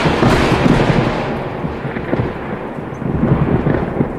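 Intro sound effect: a loud, thunder-like rumble that swells in at the start and slowly dies away toward the end.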